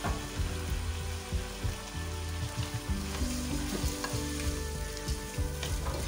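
Boiled chickpeas sizzling as they fry in hot oil and spice masala in a steel pot, stirred with a spoon, with scattered short knocks and scrapes of the spoon against the pot over a steady low hum.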